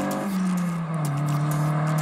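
Acura RSX Type S's 2.0-litre K20 four-cylinder pulling away under acceleration. Its engine pitch drops soon after the start, then holds steady as the car draws away.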